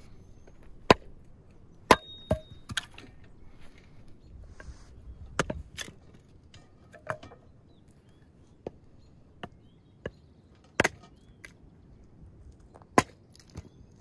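Hatchet chopping and splitting firewood on a wooden chopping block: a dozen or so sharp, irregularly spaced knocks, the loudest about a second in, about two seconds in, and near the end.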